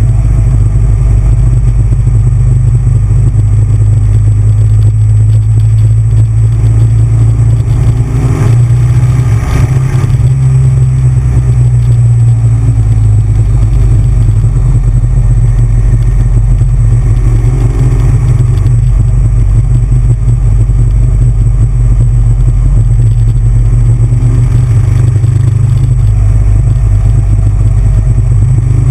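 Custom chopper motorcycle's V-twin engine running at a steady cruise, a loud low rumble that holds nearly the same pitch throughout.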